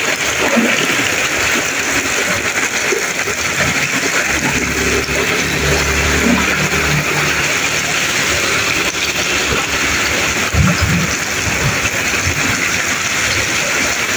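Very heavy rain pouring onto a flooded street, a steady loud hiss. A low engine hum comes and goes in the middle.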